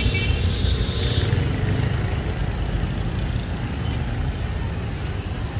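Street traffic: motorbikes and cars running along a busy city road, a steady rumble.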